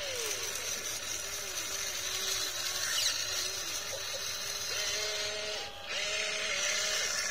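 Small electric gear motors of a toy RC excavator whining as the boom, arm and bucket move. The pitch glides and steps up and down as each motion starts and stops, with a brief break a little before six seconds.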